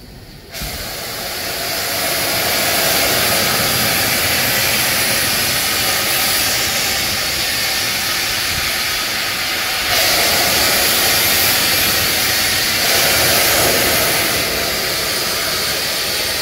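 BR Standard Class 7 steam locomotive No. 70000 Britannia venting steam in a loud, steady hiss. It cuts in abruptly about half a second in and grows louder about two-thirds of the way through, with no chuffing rhythm.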